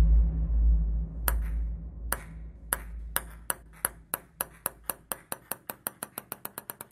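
A table tennis ball bouncing on a hard surface, its clicks coming faster and faster as it settles. The first click comes about a second in. Under the first few clicks a low rumble fades out.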